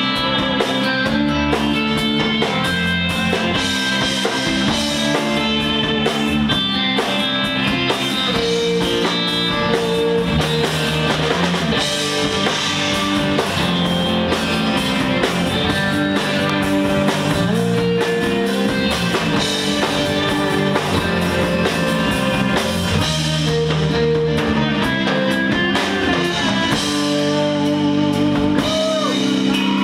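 Live instrumental surf rock: a Fender-style electric lead guitar and a bass guitar playing over a drum kit, with a few bending guitar notes near the end.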